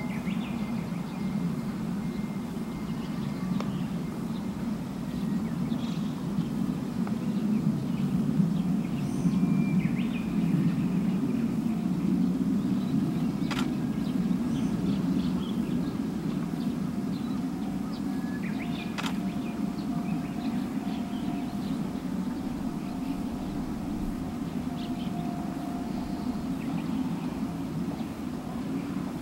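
Steady low outdoor background rumble with scattered bird chirps, and two sharp clicks about halfway through, with no train passing.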